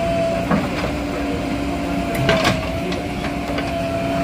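JCB 3DX backhoe loader at work, its diesel engine running steadily with a high whine, and a few sharp knocks and clanks about half a second in and again near the middle.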